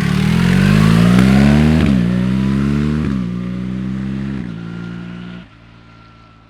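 BMW R 1300 GS Adventure's 1300 cc boxer twin breathing through an SC-Project aftermarket silencer, accelerating hard up through the gears: the engine note climbs and drops back with upshifts about two, three and four and a half seconds in, then the sound falls away sharply near the end.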